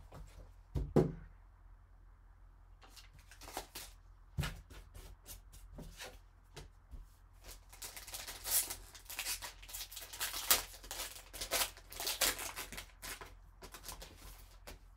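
Foil card-pack wrapper being torn open and crinkled by gloved hands, with the crackling thickest in the second half. A few light knocks of cardboard being handled come before it, the loudest about a second in.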